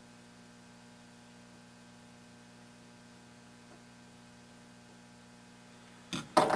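Faint steady electrical mains hum, a set of steady low tones. Near the end come two short sharp clicks or knocks, the loudest sound.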